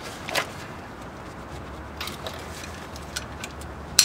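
Scattered light metallic clicks and taps of a breaker bar and socket being worked on a brake caliper bracket bolt, with one sharper click near the end.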